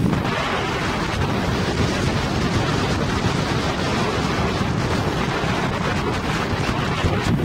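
Wind buffeting the microphone aboard a boat under way on open sea, over a steady rush of water and boat noise.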